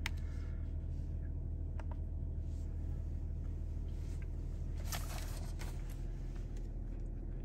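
Steady low hum of the Mercedes-AMG GT53's 3.0-litre turbocharged inline-six idling, heard from inside the cabin. A few faint clicks and a brief rustle about five seconds in.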